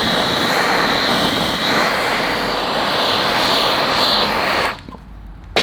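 Handheld gas torch flame burning with a loud, steady rushing hiss. It cuts off suddenly near the end, followed by a single sharp click.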